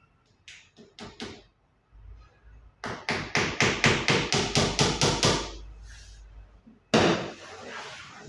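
Hammer striking on wood: a few separate knocks, then a fast run of about a dozen blows, roughly five a second. Near the end comes one sudden louder hit with a rustle trailing after it.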